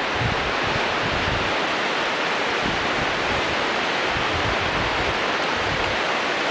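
Steady rushing hiss of whitewater river rapids below a camera hanging on a line, with light wind buffeting its microphone.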